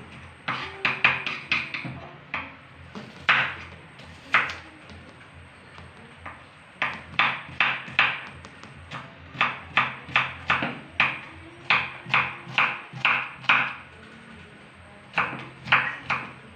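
Kitchen knife chopping onion on a wooden cutting board: runs of quick knocks, about two or three a second, broken by short pauses.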